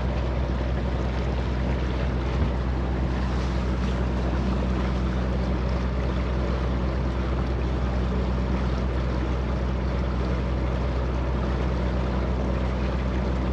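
Sailing yacht's inboard diesel engine running at a steady cruising speed, a low even drone, with water rushing past the hull and wind on the microphone.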